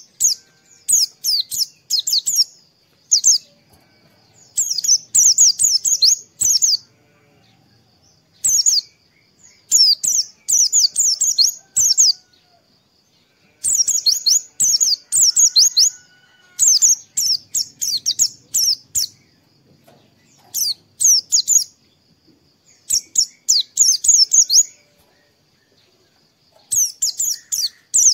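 White-eye (pleci) singing: rapid high twittering phrases of a second or two, repeated with short pauses between them.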